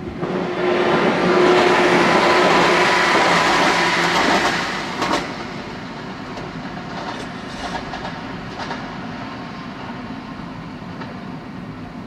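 A train passing through a level crossing at close range, loud for about four and a half seconds from just after the start, then dying away.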